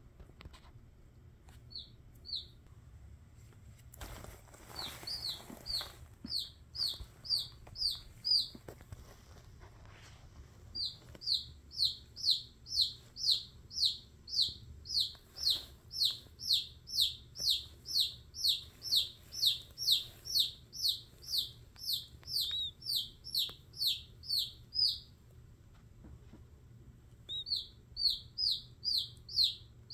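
A chicken chick peeping repeatedly: high, falling peeps at about two a second, in long runs with short pauses. These are distress calls from a chick held in a king snake's coils.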